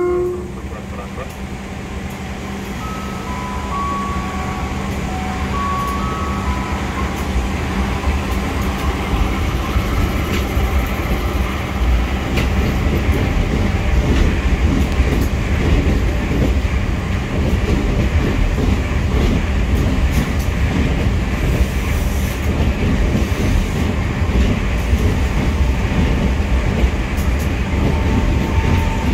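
Ex-Tokyo Metro 6000-series electric commuter train rolling slowly along the platform: a steady rumble that builds over the first dozen seconds, with wheel and rail clicks throughout. A few short beeping tones come in a few seconds in, and a faint motor whine near the end.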